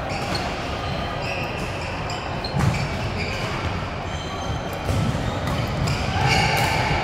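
Badminton rally on an indoor court: several sharp racket strikes on the shuttlecock, with short shoe squeaks on the court floor in between.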